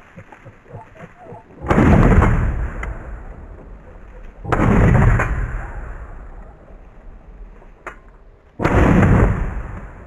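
Three shotgun shots, about three and four seconds apart, each a sharp report trailing off in a long rumbling echo.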